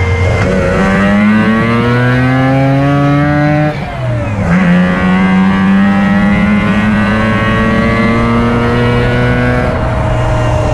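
Rotary engine of a rotary-swapped Toyota pickup accelerating hard on the freeway: the pitch climbs, drops briefly at a gear change about four seconds in, then climbs again through the next gear before easing off near the end.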